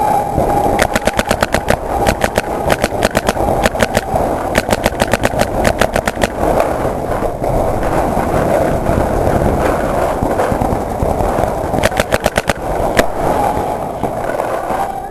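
Paintball marker firing rapid strings of shots, about ten a second, in four bursts and a last single shot, over continuous rushing and scuffing noise from the marker being moved.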